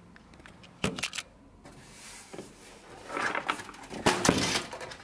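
Handling noise as a camera is set down on a desk and a hand moves about the computer case: a few light, separate knocks and clicks, then a cluster of sharper clicks about four seconds in.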